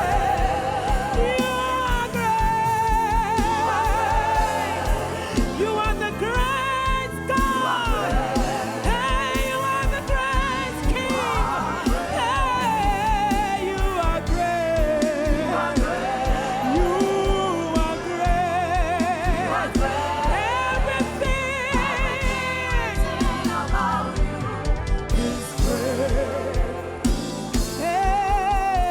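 Gospel worship song: a solo voice singing with heavy vibrato over backing singers, keyboard and a steady beat.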